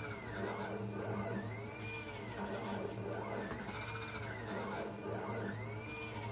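Wanhao Duplicator i3 Plus 3D printer printing its first layer, its stepper motors whining in tones that rise and fall about once a second as the print head speeds up and slows down on each pass. A steady hum runs underneath.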